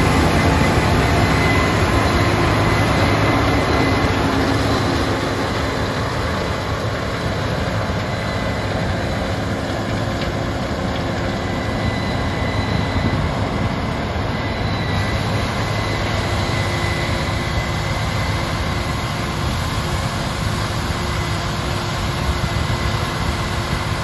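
Case IH 7230 combine harvester running while harvesting corn: a steady engine drone and machinery noise with a thin steady whine. It drops a little about five seconds in as the machine moves off, then holds level.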